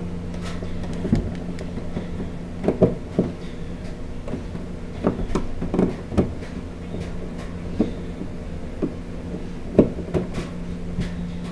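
Screwdriver turning a terminal screw on a barrier terminal strip, with irregular small clicks and knocks as the crimped ring terminal and wires are handled and seated. A steady low hum runs underneath.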